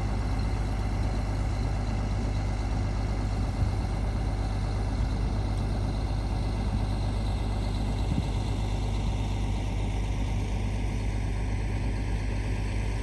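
Heavy truck engine running steadily at a constant low rumble, with a couple of small knocks.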